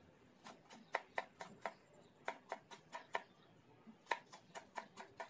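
Kitchen knife finely chopping a green bell pepper on a cutting board: quick, even taps, about four a second, in short runs with brief pauses.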